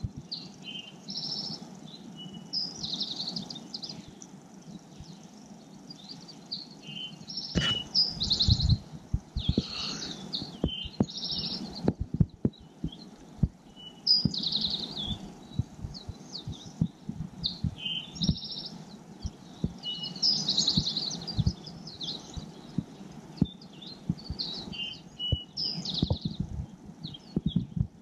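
Dawn chorus of several songbirds: short high chirps and trills repeating over and over. Scattered low thumps and rumbles on the microphone, densest about a third of the way in.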